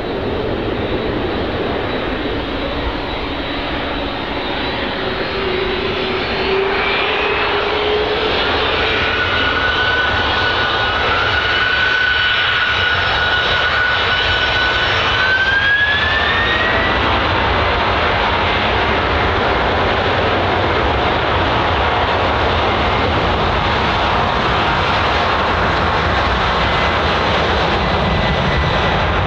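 Boeing 747-400 freighter's four GE CF6-80C2 turbofans spooling up to takeoff power for the takeoff roll. The engine whine rises in pitch twice, about a third of the way in and again past the middle, and the roar grows louder through the first half, then holds steady at full thrust.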